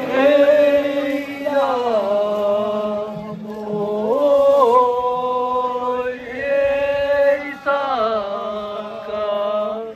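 A man's voice singing a slow, drawn-out festival chant, holding long notes that slide down and up in pitch, with a brief break near the end.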